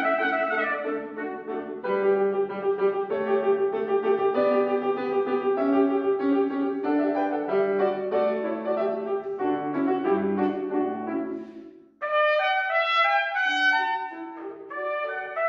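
Grand piano playing an accompaniment passage alone while the trumpet rests; it fades out just before the trumpet comes back in, about twelve seconds in, with a bright, high phrase over the piano.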